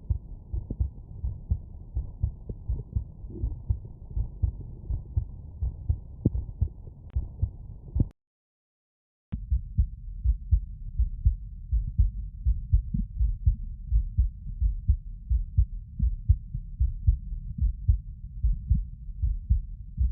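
Normal heart sounds heard through a stethoscope: a regular heartbeat of low thumps. About eight seconds in, it drops out to silence for about a second, then the heartbeat resumes, more muffled.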